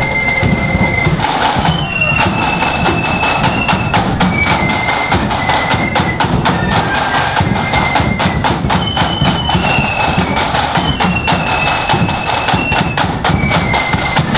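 Marching flute band playing a tune: flutes in unison carry a high melody of held notes over a busy snare-drum rhythm and a bass drum beat.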